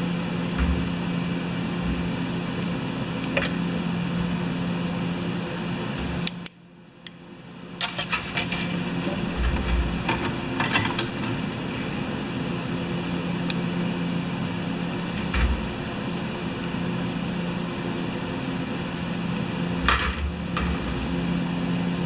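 Steady low mechanical hum, which drops out about six and a half seconds in and comes back over a second or so. A few light metallic clicks come from a small carburetor body being handled.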